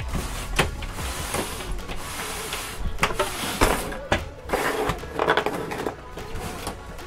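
Handling noise on an XYZ da Vinci 1.0A 3D printer's housing: scattered knocks and scuffs as hands move over the panels, busiest in the middle of the stretch.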